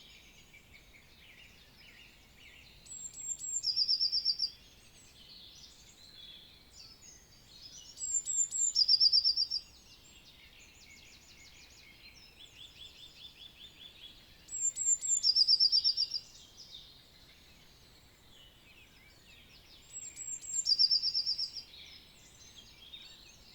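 Forest birds in a spring morning chorus: one songbird repeats the same short, loud song four times, about every six seconds, each song opening with high notes and ending in a trill. Fainter calls and songs of other birds run on underneath.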